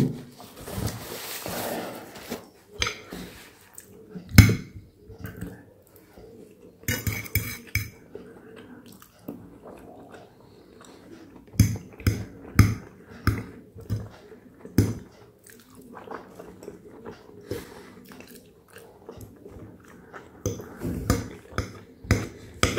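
Mukbang eating sounds: a paper towel rustles at the start, then a metal fork clicks and scrapes on a ceramic plate. Between these comes chewing of soft boiled carrots and fennel, in a steady run of about two chews a second in the middle.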